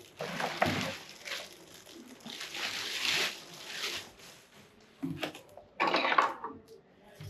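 Rustling and scraping of packaging in several irregular bursts as the serger is lifted out of its box.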